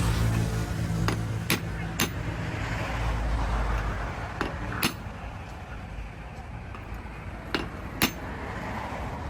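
Hammer knocks on metal: seven sharp strikes, mostly in pairs about half a second apart, over a low steady hum.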